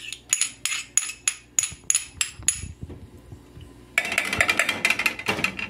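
A metal spoon taps sharply against a plate and an aluminium pan, about nine ringing knocks at roughly three a second, as lard and crushed garlic are scraped into the pan. From about four seconds in, a dense crackling sizzle: the garlic frying in the hot pork lard.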